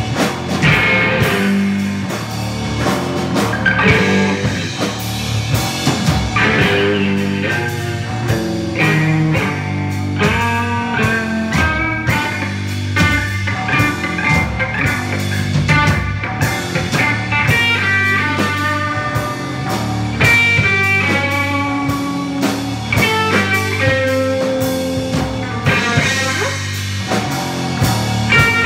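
Live rock band playing: electric guitar lines over a drum kit, with sustained low notes underneath.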